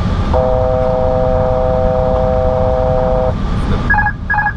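Airbus A321 cockpit with the steady rush of engine and airflow noise. A steady three-note chord alert sounds for about three seconds, typical of the Airbus C-chord altitude alert. Near the end it is followed by short repeated beeps as the autopilot is switched off.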